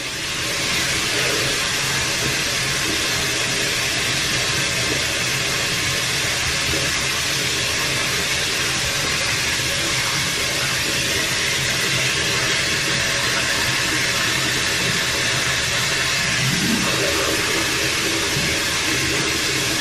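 Bathroom tap running steadily into a sink, a continuous hiss of flowing water.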